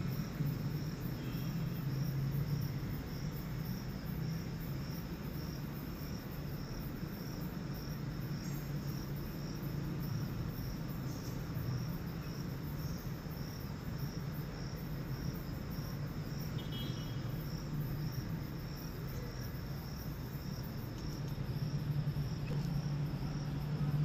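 Crickets chirping in a steady, evenly repeating pulse, over a low steady hum.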